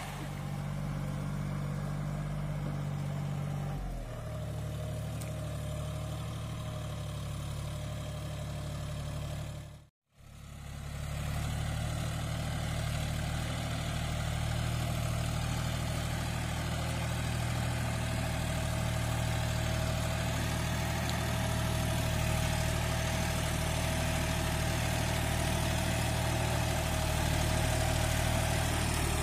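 John Deere 5104 tractor's three-cylinder diesel engine running steadily under load as it drives a rotary tiller through wet mud. The sound cuts out briefly about ten seconds in, then the engine note comes back. A faint steady whine sits over it in the second half.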